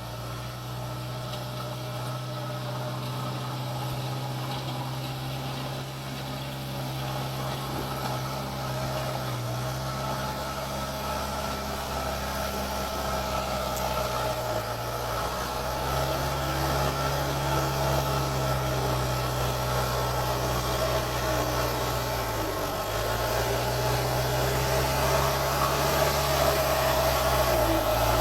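JCB 3DX backhoe loader's diesel engine running steadily, its pitch sagging briefly under load a few times, and growing louder toward the end.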